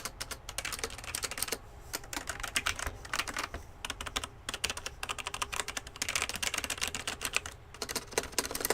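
Typing on a Logitech G910 Orion Spectrum mechanical keyboard with Romer-G switches: quick runs of key clacks broken by short pauses, pretty quiet for a mechanical keyboard.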